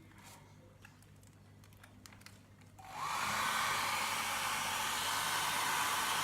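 Handheld hairdryer switched on about three seconds in, then blowing steadily into the hose of a soft hair-bonnet hood. Before it starts there are only faint handling clicks.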